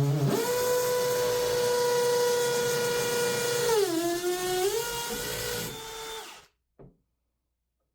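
Power drill boring a hole through shower wall tile: it runs at a steady whine, dips in pitch for about a second as it bogs under load, picks back up, then stops about six and a half seconds in.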